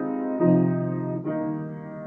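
Slow instrumental music: held chords with a horn-like, keyboard tone, the chord changing about half a second in and again just past one second.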